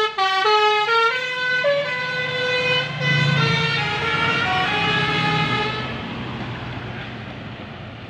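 Telolet musical air horn on a passing tour bus playing a melody of quick stepped notes, fading out after about five and a half seconds as the bus pulls away. A low engine rumble swells about three seconds in as the bus goes by.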